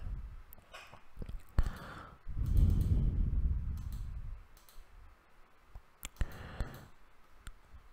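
Scattered computer mouse clicks, several separate sharp clicks. A low breathy noise on the microphone runs for about two seconds, starting about two seconds in.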